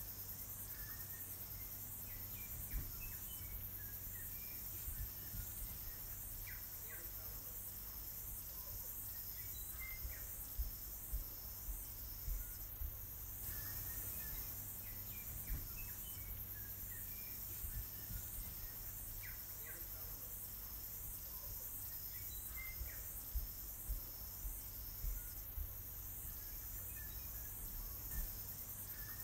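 Outdoor nature ambience: insects chirping in a steady, evenly pulsing high buzz, with scattered faint bird chirps. A low hum and a few soft low bumps lie underneath.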